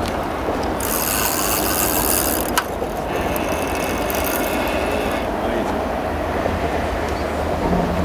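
A fishing reel rasps for about four seconds, starting about a second in, while a big fish is played on the rod; there is a single sharp click partway through. Under it, road traffic on the bridge makes a steady low rumble.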